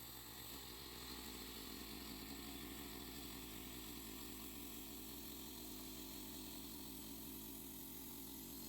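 Gas engine of a portable band sawmill running steadily.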